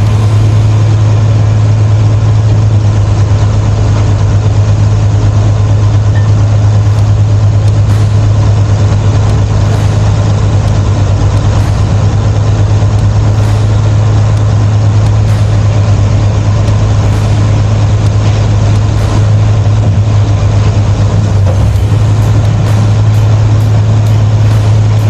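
Mobile crane's diesel engine running steadily, a loud, even low hum.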